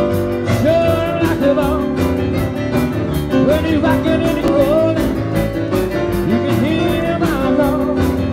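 Live band playing fast 1950s rock and roll, with pounding stage-keyboard piano and a quick steady drum beat of about four hits a second, under a lead line sliding between notes.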